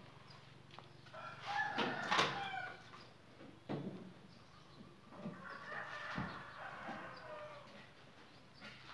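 A rooster crowing twice, each crow lasting about one and a half to two seconds, the second trailing off downward in pitch, with a few scattered knocks.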